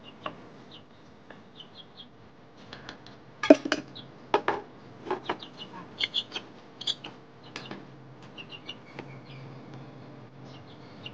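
Clinks and knocks of a spoon, tin and dishes being handled, the loudest a sharp clack a little over three seconds in, with short high bird chirps throughout.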